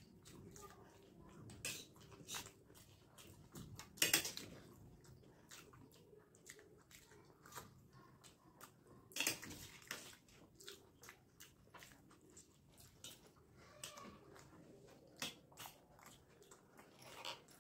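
Close-up eating sounds: two people chewing mouthfuls of samosa chaat, with many short clicks and smacks as spoons scrape and tap on the plates. The loudest clatters come about four and nine seconds in.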